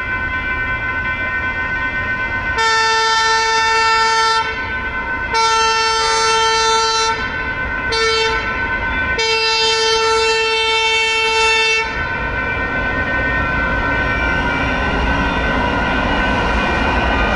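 CAF light rail train's horn sounding the long, long, short, long grade-crossing signal over the steady ringing of the electronic crossing bells, then the train rolling through the crossing with a low rumble in the last few seconds.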